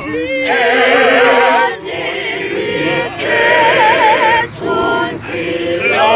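Small all-male a cappella choir singing a praise-and-worship song in isiZulu in several parts. Long held notes waver, and short breaks fall between phrases.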